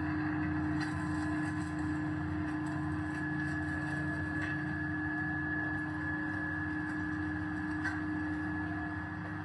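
Stainless steel pulverizer running steadily, a constant motor hum with a higher whine over it. A few faint ticks come as hard lumps drop into its hopper.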